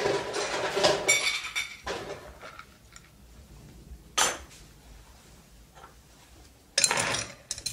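Ice cubes clattering and clinking against glass as glasses are iced for a cocktail: a busy rattle of clinks at first, a single sharp clink about four seconds in, and another short rattle near the end.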